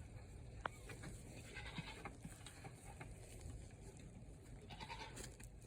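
Goat bleating faintly, with a sharp click just under a second in.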